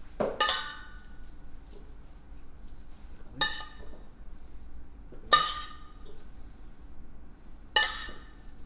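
A utensil clinking against a serving plate four times, a few seconds apart, each strike ringing briefly; the third is the loudest.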